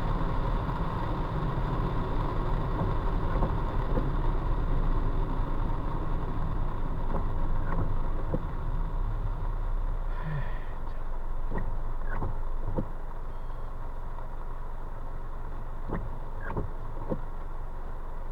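Car driving on a wet road in heavy rain, heard from inside the cabin: a steady rush of tyre, rain and engine noise with a low rumble. A few brief clicks come in the second half, and the noise drops a step about two-thirds of the way through.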